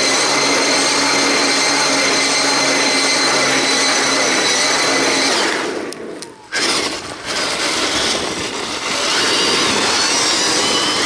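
Brushless electric drive motor of a 1/5-scale electric-converted RC monster truck whining at full throttle. The steady high whine runs for about five seconds, drops away briefly around six seconds, then comes back with a rising pitch near the end.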